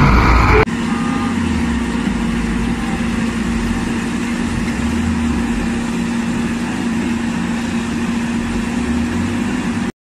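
Heavy diesel engine of a tracked excavator running steadily, a held droning tone over an uneven low rumble. It opens with a split second of louder noise and drops out to silence at the very end.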